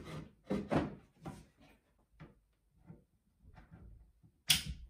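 Wooden boards knocking and clunking as they are fitted into a wooden shelving unit during assembly: a series of irregular knocks, two close together about a second in, fainter taps through the middle and the loudest, sharpest clunk near the end.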